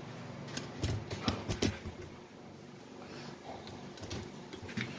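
Footsteps and a few soft knocks in the first two seconds, then faint room noise.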